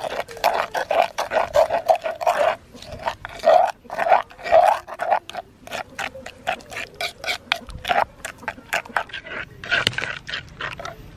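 Metal spoon stirring and scraping around the inside of an earthenware mortar through a wet sauce, in quick strokes about four a second, with a louder scrape near the end.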